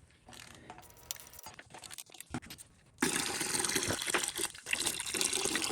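Light tool clicks, then about three seconds in coolant starts gushing out of the LT1 V8 block through the open knock sensor hole and splashes steadily into a drain pan.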